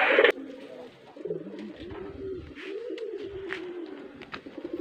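Domestic pigeons cooing: a run of low coos, each rising and falling, with a few faint clicks.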